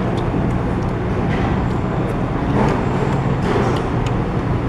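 Steady low background rumble with a few light clicks scattered through it.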